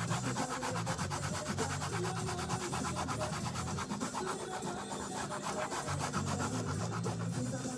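Pencil scribbling rapidly back and forth on paper, colouring in an area in quick, even strokes, several a second.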